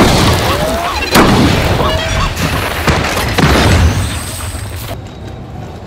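Loud booms over music: about four heavy, sudden hits in the first four seconds, with crashes between them. The sound turns quieter and duller shortly before the end.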